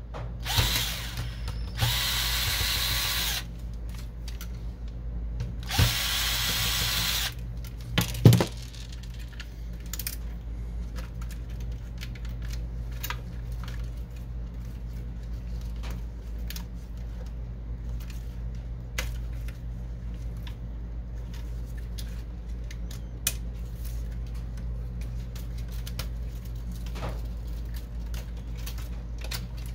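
Powered screwdriver whirring in two runs of about a second and a half each, backing screws out of an inkjet printer's frame. A sharp knock follows about eight seconds in, then light clicks and rattles of plastic and metal parts being handled.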